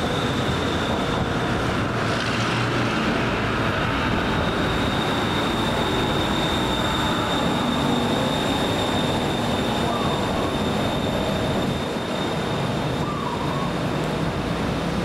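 Bangkok BTS Skytrain electric train running on the elevated track: a steady rumble of wheels on rail with a high, steady whine above it.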